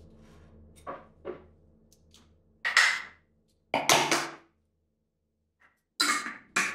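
A glass ketchup bottle being shaken and smacked to get ketchup out: two light knocks about a second in, then louder smacks and two more near the end. The bottle is empty and not a drop comes out.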